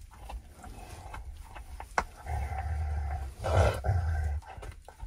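Three-week-old Great Pyrenees puppies growling at each other as they play-fight. A low growl starts a little after two seconds in and lasts about two seconds, louder in the middle.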